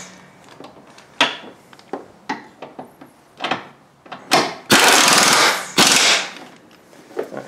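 Small air impact wrench hammering engine mount bolts snug. It fires in short bursts about a second in, around three and a half and four seconds in, then one longer burst lasting a little over a second near the end.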